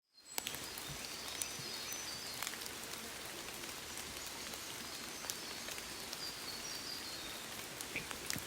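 Steady rain falling in forest, a continuous hiss with scattered sharp drop ticks, fading in at the start; faint short high chirps sound over it.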